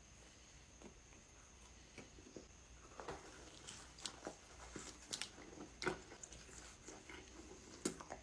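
Quiet close-miked eating of a donut: chewing with small wet mouth clicks, sparse at first and busier from about three seconds in.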